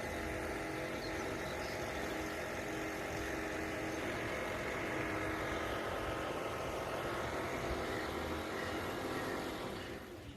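Engine of a paddy-harvesting machine running steadily.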